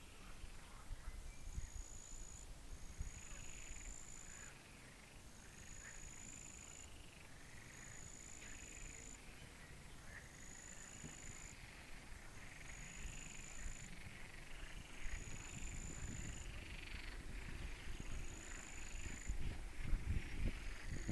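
Frogs calling repeatedly at a pond, with a high thin note that sounds about nine times in a regular pattern and low wind rumble on the microphone that grows stronger near the end.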